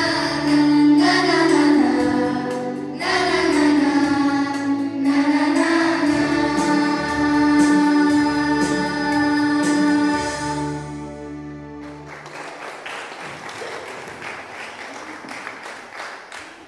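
Children's choir singing a song with electronic keyboard accompaniment holding low sustained notes. The singing and accompaniment stop about twelve seconds in, leaving a lower, noisy room sound.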